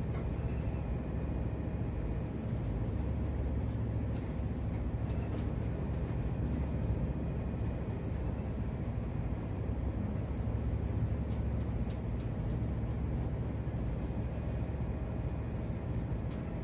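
Ship's engine running with a steady low drone, heard from inside the wheelhouse.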